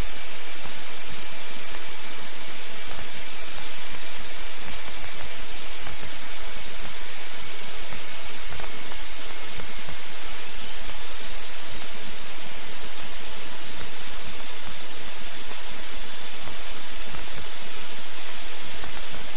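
Steady, loud hiss like radio static or white noise in a Cessna 172's cockpit audio, with no voices. A faint thin tone runs under it and bends slightly upward about ten seconds in.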